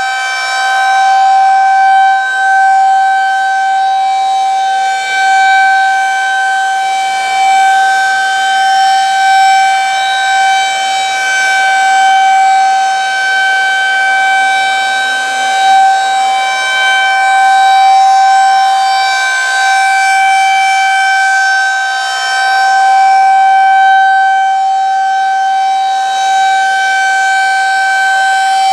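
Federal Signal 2001-SRNB rotating outdoor warning siren sounding its steady 772 Hz alert tone on a test run: one loud, held pitch with overtones above it, unbroken and not wailing up and down.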